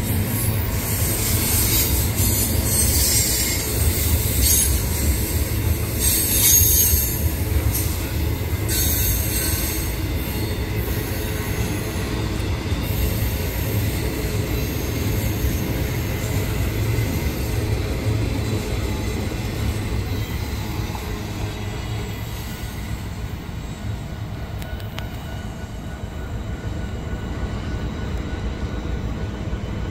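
Double-stack intermodal freight cars rolling past with a steady rumble of wheels on rail. High-pitched flange squeal comes and goes through the first ten seconds or so, then fades, leaving the rumble.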